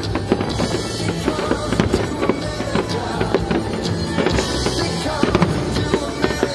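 Aerial fireworks bursting in quick, irregular succession, many sharp bangs and crackles, over music.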